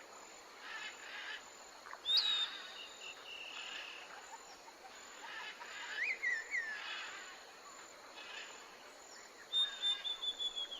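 Bird calls: a sharp high call about two seconds in, a few gliding chirps around the middle, and a quick run of repeated high notes near the end, over a faint outdoor hiss.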